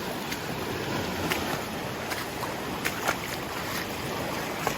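Steady rushing of the flooded Chattooga River, with a few short, sharp clicks scattered through it.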